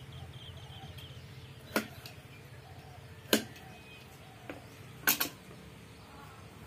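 A few sharp clicks and taps of hand tools being handled and set down while grafting an adenium. One comes nearly two seconds in, the loudest about a second and a half later, and a quick pair near the end, over a steady low hum.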